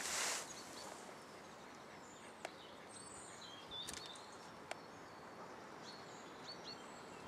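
Faint open-air background hiss with small birds chirping a few times, several short calls a little after the middle and again near the end, and a couple of faint clicks.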